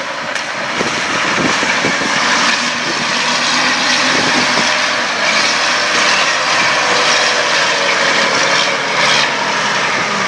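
Off-road diesel 4x4 engine running hard and steadily under load.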